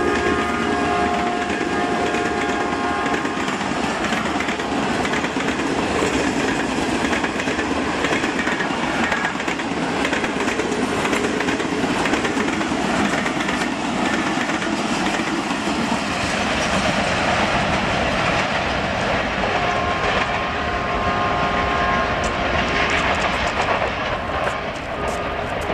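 Passenger coaches of an express train rushing past at speed: a steady roar of wheels on rail with a clickety-clack over the rail joints. The diesel locomotive's multi-note horn dies away in the first few seconds, and a train horn sounds again for a few seconds about 20 seconds in as the train recedes.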